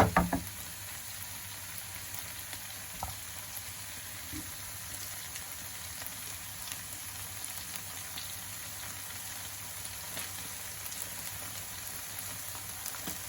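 Tofu and egg frying in soy and oyster sauce: a steady sizzle with faint crackles. A few sharp knocks come right at the start.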